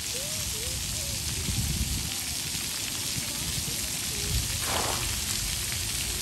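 Splash pad water jets spraying and falling onto the wet play surface, a steady hiss, with faint children's voices in the distance.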